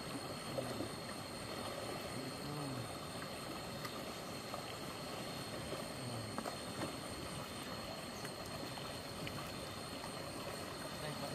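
Steady rush of flowing stream water, with a steady high-pitched whine above it and a few faint voices.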